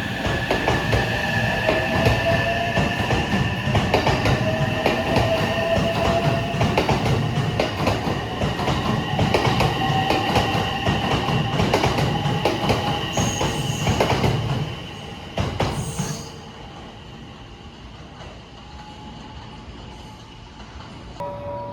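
Train running past on the track, its wheels clicking over rail joints over a low rumble, with a steady high squeal. The noise drops off sharply about 16 seconds in, leaving a much quieter background.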